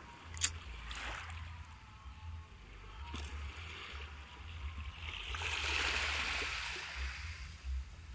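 Small sea waves washing onto the beach, one wash swelling and fading about five seconds in, over a low uneven rumble. A sharp click comes about half a second in.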